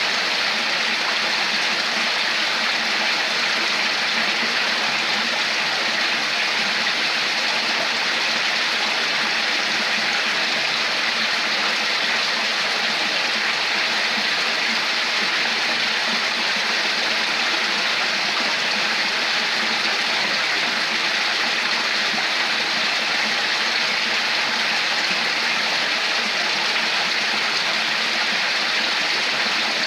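Water flowing steadily in a stream, a constant even rush of splashing water.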